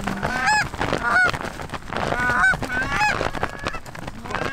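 Goose calls blown by hunters: a string of loud honks and clucks, about one every half second, each note rising and breaking sharply, imitating Canada geese to turn a flock back toward the decoys.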